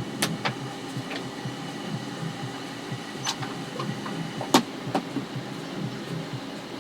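Steady background hum with a scattering of short, sharp clicks and knocks; the loudest knock comes about four and a half seconds in.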